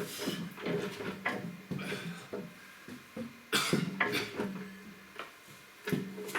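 Irregular metal clanks, knocks and scrapes of tools and parts while a backhoe hydraulic cylinder is reassembled, with one sharp strike about three and a half seconds in.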